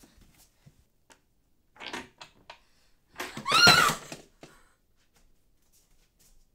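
A woman's short, high-pitched scream about three and a half seconds in, its pitch rising and then falling. A briefer noisy sound comes about two seconds in.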